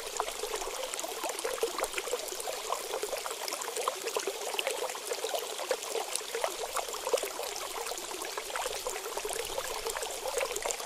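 Water running in a steady, continuous stream, a splashing hiss.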